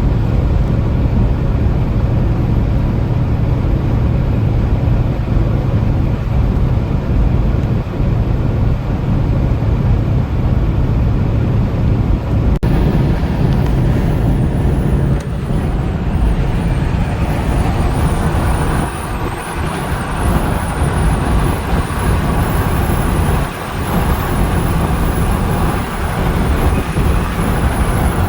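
Steady engine drone and road noise of a vehicle driving on a highway. The low drone eases about halfway through and more tyre and wind hiss comes in.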